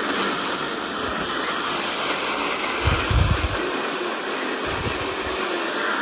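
Steady hiss of radio static from a receiver on a weak weather radio signal, with two dull low thumps about three seconds in and near five seconds.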